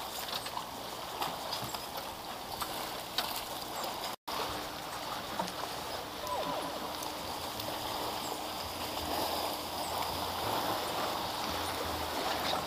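Water lapping and trickling against the side of a small boat, with scattered small knocks. The sound cuts out briefly about four seconds in, and there is some splashing near the end as a hand goes into the water.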